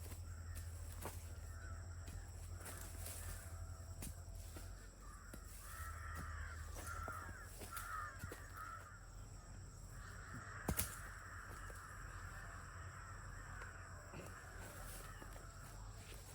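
Crows cawing repeatedly, the calls coming in a cluster around the middle and then almost without a break, with scattered light clicks and one sharp knock a little after halfway.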